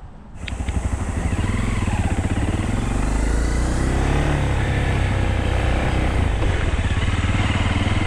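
Dirt bike's engine running steadily as it is ridden, loud and heavy in the low end.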